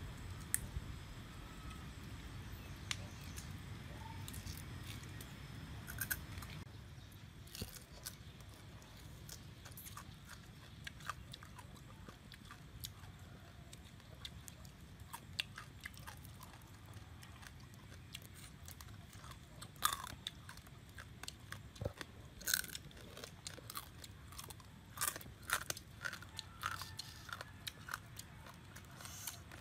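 Chewing and crunching of cooked crab, with scattered sharp cracks of crab shell being bitten and broken apart by hand, coming more often in the last ten seconds.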